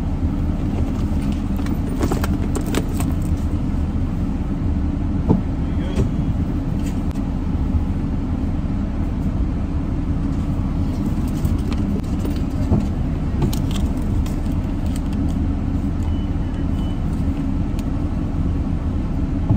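Steady low rumble of a car idling, heard from inside the cabin, with scattered light clicks and rattles of things being handled.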